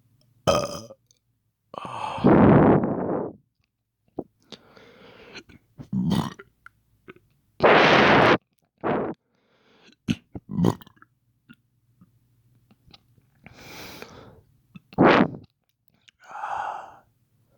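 A man making forced, fake hiccups and burps: a string of about a dozen short bursts from the throat with gaps between them, the two loudest drawn out into belches about two and eight seconds in.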